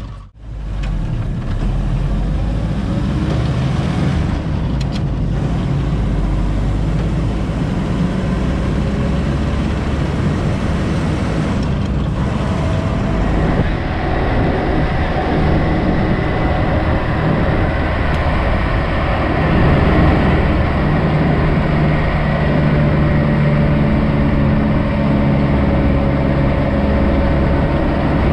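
1949 Willys CJ-3A's four-cylinder flathead engine running steadily under way on the road, with wind and road noise around the open Jeep.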